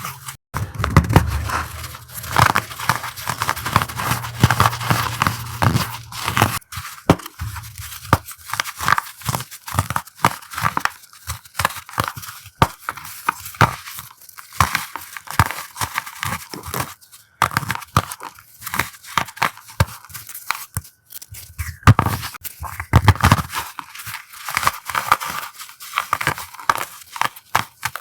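Coloured blocks of chalk being crushed, a dense run of crunchy crackling with faint squeaks, with low rumbling handling thumps in the first few seconds and again a little past two-thirds of the way through.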